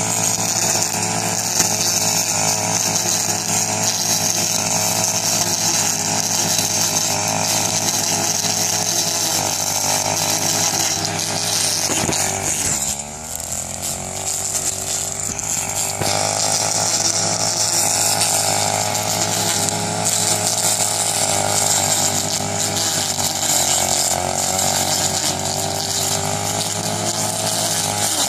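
Backpack petrol brush cutter running at high speed while cutting dry rice stubble. About halfway through the engine eases off briefly, then speeds back up and runs steadily again.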